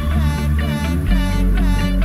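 Background music with a strong bass line and a melody that slides between notes; the bass note changes about a second in.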